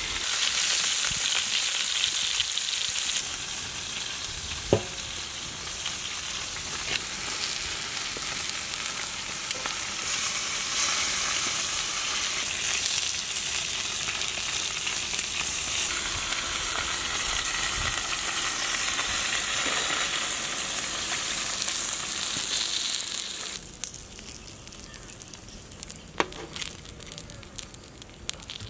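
Chicken drumsticks sizzling on a hot iron pan, a dense steady hiss, with a sharp click about five seconds in. A little before the end the sizzle falls away to a much quieter background with a few small clicks.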